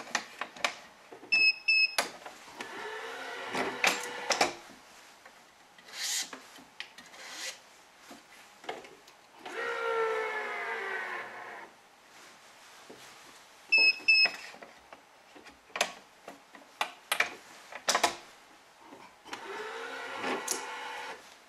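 BG80 badminton string being drawn through the racquet's strings while weaving crosses, giving a rising zipping whine several times, with clicks from handling the string and clamps. Two short electronic beeps from the stringing machine, about a second and a half in and again near fourteen seconds.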